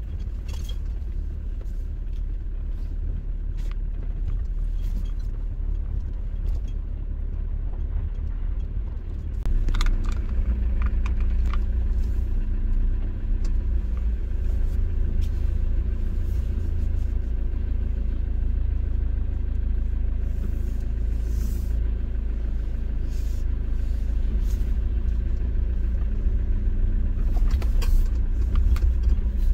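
Car cabin noise as the car is driven slowly over a rough rural road: a steady low rumble of tyres and engine that grows louder about a third of the way in, with scattered small clicks and knocks.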